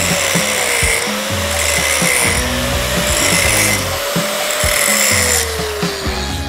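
Angle grinder grinding down a weld bead on steel pipe in repeated passes, bright grinding noise coming and going, its motor whine sagging and recovering with each pass. Background music underneath.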